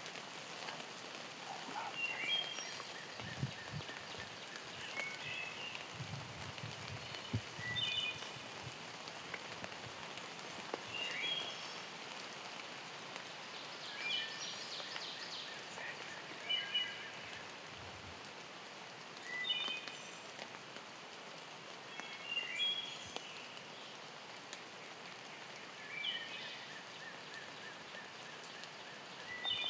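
Steady hiss of rain with a songbird singing short, chirpy phrases every couple of seconds.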